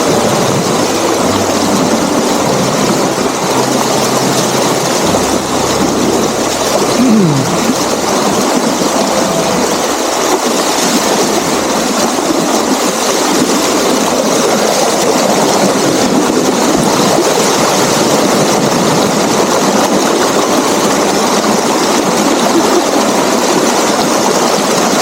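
Water rushing steadily at a dam, a loud even roar of running water with no break.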